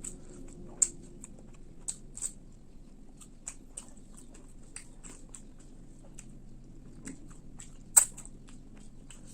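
Close-miked chewing of a mouthful of fish and rice: a run of wet mouth clicks and smacks, with a sharp loud click about a second in and another near the end.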